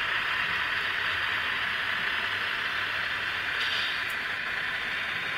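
Model freight train running past: a steady hiss of hopper cars rolling along the track, with a brief brighter hiss about three and a half seconds in.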